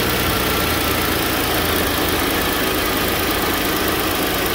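Engine of a first-generation Ford Edge idling with its electric radiator cooling fans running: a steady low hum under an even rushing of air.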